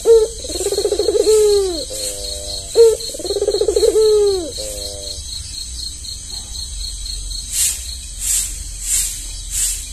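An albino Barbary dove (puter) cooing: two pulsing, rolling coos in the first five seconds, each ending in a falling note. After a pause, a faint regular ticking sets in, about one tick every 0.6 seconds.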